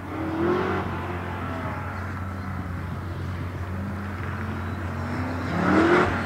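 Chevrolet Corvette Z06's V8 accelerating and lifting off, its pitch rising about half a second in, easing, then climbing and growing louder near the end as the car closes in.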